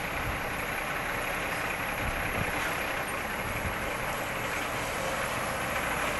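Distant semi tractor's diesel engine running steadily, a low rumble under even background noise.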